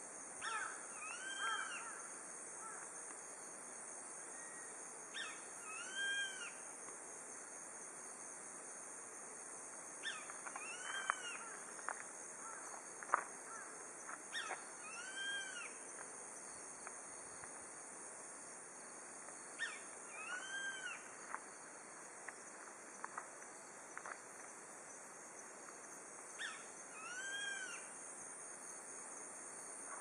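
Grey-faced buzzard (sashiba) calling: a two-part whistle, a short first note followed by a slurred note that rises and falls, repeated about six times at intervals of four to six seconds.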